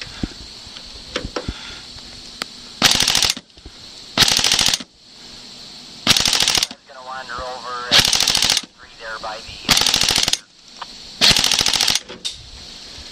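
MP5-style airsoft gun firing six short full-auto bursts, each about half a second of rapid clatter, one every second and a half or so.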